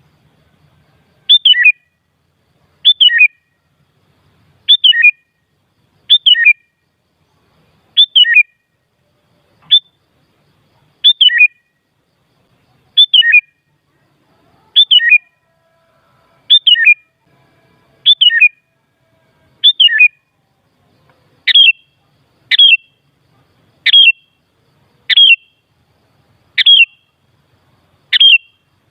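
Sooty-headed bulbul (kutilang) calling: a loud, short phrase that falls in pitch, repeated about every second and a half, a little faster in the second half. A recorded lure call, played to set off other kutilang.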